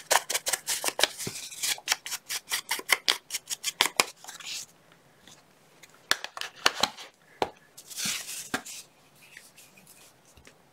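Foam ink blending tool scrubbed rapidly against paper, a fast run of scratchy strokes at about five a second for the first four and a half seconds. Then a few separate knocks and a short scrape as the tool and ink pad are handled and set down.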